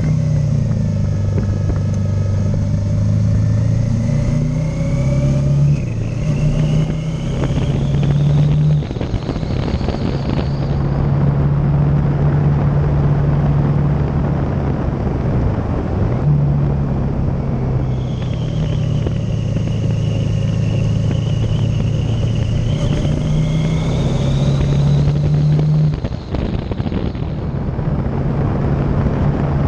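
Motorcycle engine running while riding, its pitch shifting and dipping several times with throttle and gear changes, over a steady rush of wind and road noise. A faint high whine rises twice.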